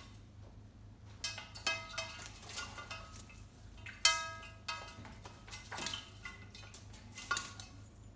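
A drinking glass clinked and knocked repeatedly by an African grey parrot at play, each strike ringing briefly. There are about seven clinks, the loudest about four seconds in.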